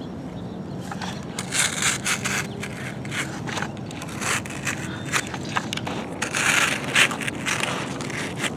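Plastic toy digger scraping and scooping through sand: irregular gritty scrapes that come and go, loudest about six to seven seconds in.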